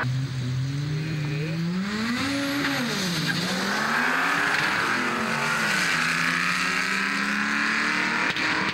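Two drag-racing cars' engines revving hard at the start line, their pitch climbing and dropping several times as they launch and accelerate away down the strip, with some tyre squeal.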